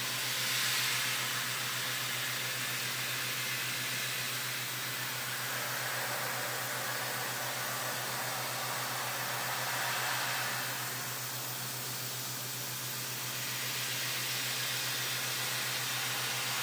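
Hurco VMX30Di CNC vertical mill chamfering an aluminum part with a 1/2-inch chamfer tool at 7,639 rpm under flood coolant: a steady hiss of coolant spray and cutting over a constant low spindle hum, swelling slightly a couple of times.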